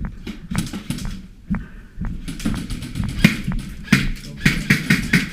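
Airsoft guns firing indoors: sharp snaps and clicks, a few at first, then a fast run of several a second from about two seconds in.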